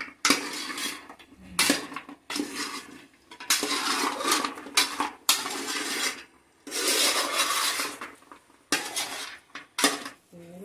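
Metal spoon scraping and clinking against an aluminium pan as fried small fish are stirred into thick pickle gravy, in a run of repeated scraping strokes with sharp knocks between them.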